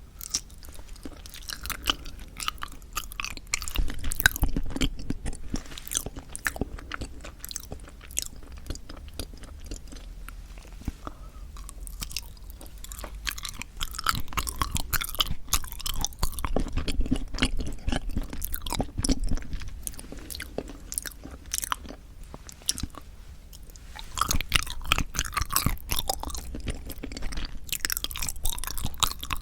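Close-miked chewing of soft yanggaeng (Korean sweet red-bean jelly): many small, sharp mouth clicks, coming in spells of a few seconds with quieter stretches between.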